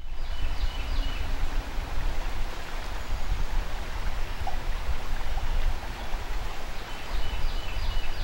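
Flowing river water with wind buffeting the microphone, giving a low, uneven rumble under the rush of the water.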